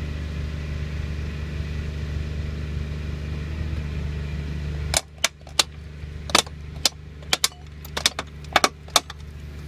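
Engine of a pipe-bursting rig's power unit running steadily; about five seconds in it drops away and a string of sharp, irregular metallic cracks and clinks follows as pieces of the 4-inch cast iron pipe fracture and pop off around the bursting head.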